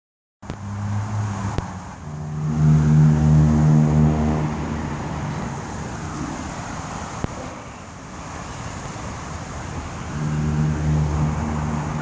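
Road traffic: a steady background of vehicle noise with a low engine hum that swells for about two seconds, starting two and a half seconds in, and again near the end.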